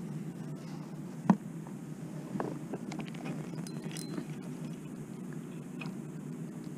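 A fishing rod and spinning reel being handled in a kayak: one sharp click about a second in and a few fainter ticks later, over a steady low rush of wind and water.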